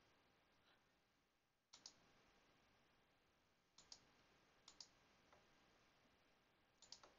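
Computer mouse clicks: four quick double clicks a second or two apart, each a press and release, against near silence.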